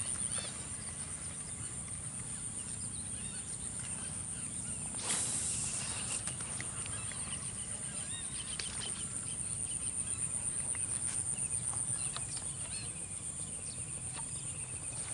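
Rural field ambience: a steady, high, finely pulsing insect trill with scattered short bird chirps. About five seconds in comes a brief rush of noise.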